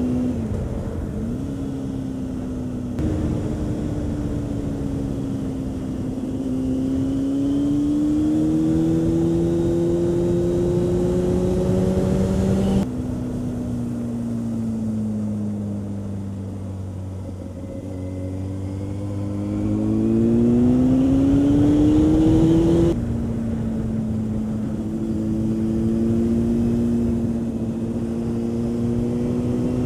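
Honda CB600F Hornet's inline-four engine at road speed, heard from the rider's seat, its pitch rising and falling with the throttle. It slows gradually through the middle, then pulls up again, with a few sudden steps in pitch along the way.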